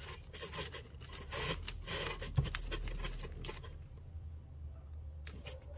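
Rustling and scraping as packaged firework fountains are handled, with a knock about two and a half seconds in.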